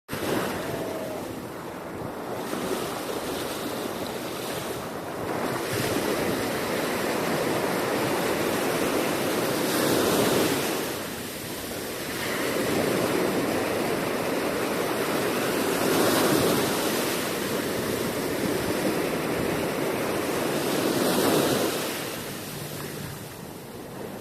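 Ocean waves in steady surf, swelling to louder surges about every five or six seconds.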